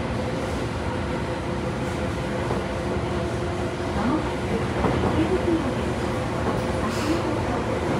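Tobu 9000 series electric train running through a subway tunnel, heard from inside the passenger car: a steady rumble of wheels and running gear with a held hum. Tones slide up and down about halfway through and again near the end.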